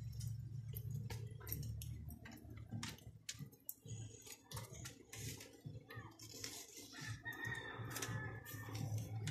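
Chickens clucking, with a rooster crowing once about seven seconds in, under scattered clicks and knocks from the phone being handled.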